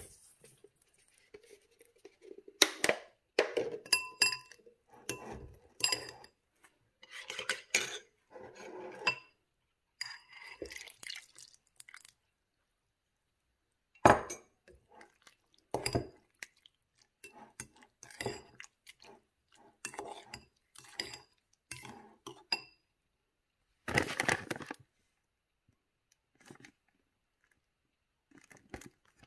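Metal spoons clinking and scraping against a ceramic bowl and mug while oats and milk are stirred. The clinks come on and off, with a couple of short pauses.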